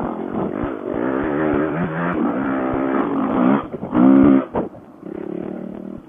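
Honda dirt bike's single-cylinder four-stroke engine revving up and down under a rider on trail, picked up through a Bluetooth helmet-headset microphone that makes it sound thin. About four seconds in it revs up hard and loudest, then eases off.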